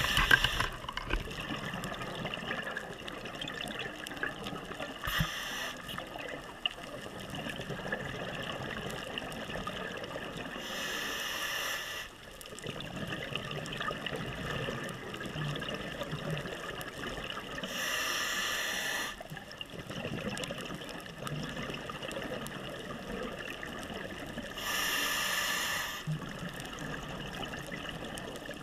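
A scuba diver's regulator breathing underwater: a bubbling rush of exhaled air roughly every six to seven seconds, with a low crackling hiss between breaths.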